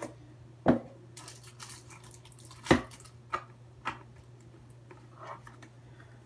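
Pokémon trading cards being handled and flicked through by hand: two sharp snaps about two seconds apart, a few softer clicks and some brushing of card on card, over a steady low hum.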